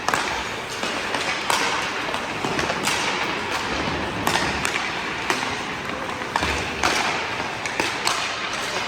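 Ice hockey practice: pucks cracking off sticks and boards in irregular sharp knocks, about a dozen, over the steady hiss of skates on the ice.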